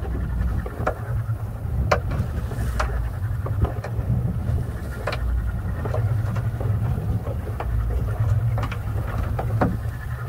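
Outboard motor of a small fishing boat running steadily at low speed, with wind and water hiss. Scattered light knocks and clicks come as the gillnet is fed out over the gunwale.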